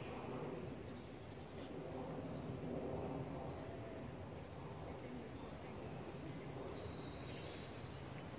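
Steady outdoor background noise: a low rumble under a faint hiss, with no clear buzzard calls.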